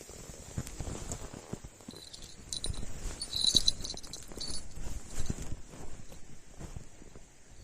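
Irregular light knocks and handling noises, with bursts of small metallic clinking and jingling in the middle.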